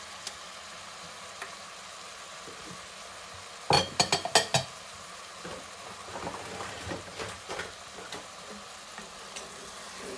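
Ground beef mince and chopped tomatoes sizzling steadily in a metal pan. About four seconds in, a spoon scrapes and knocks sharply against the pan in a quick flurry as the mixture is stirred, followed by lighter scraping over the next few seconds.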